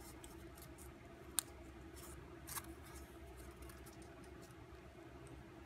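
Faint crinkles and ticks of stiff drawing paper being pinched and creased between the fingers, the sharpest tick about a second and a half in, over a low steady hum.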